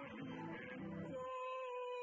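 A hymn being performed, moving through sustained chords and then holding one long note through the second half, with the bass dropping out under it.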